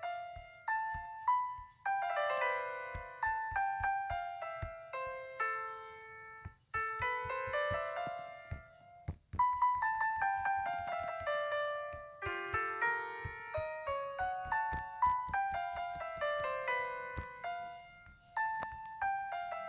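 Background piano music: repeated runs of ringing notes falling in pitch, with short pauses between phrases.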